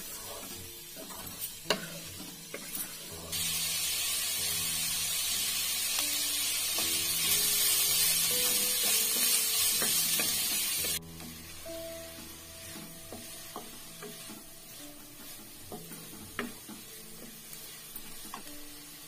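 Sliced onions and green chillies sizzling in oil in a pan, stirred with a wooden spatula that clicks and scrapes against the pan. A much louder sizzling hiss starts suddenly about three seconds in and cuts off abruptly about eleven seconds in.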